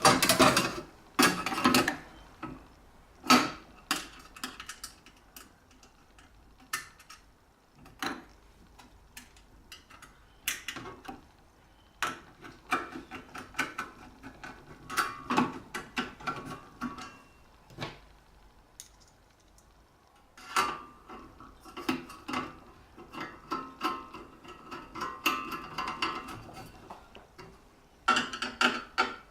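Metal covers and screws being handled and fitted back onto a continuous band sealing machine: irregular clinks, taps and knocks, some of them ringing briefly, with short quiet gaps between.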